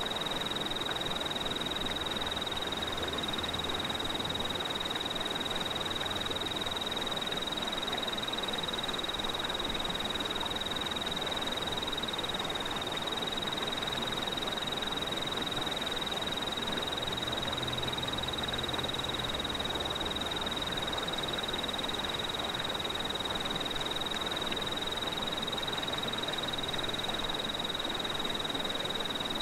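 Night ambience: a steady chorus of calling night animals, with one continuous high trill over a constant hiss and a faint low hum.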